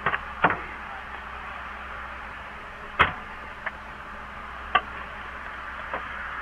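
Steady hiss with about six short, sharp clicks and knocks, the loudest about three seconds in.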